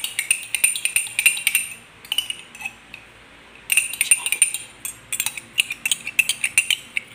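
Metal spoon stirring a mixture of tamarind and sweet soy sauce, clinking rapidly against the side of its container in quick runs, with a pause of about two seconds near the middle.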